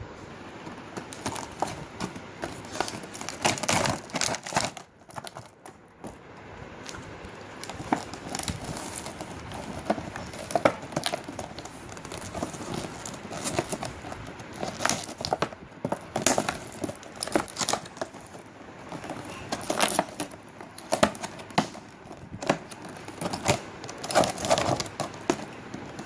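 An air pistol's packaging being handled and unpacked: rustling with many irregular sharp clicks and knocks, with a brief lull about five seconds in.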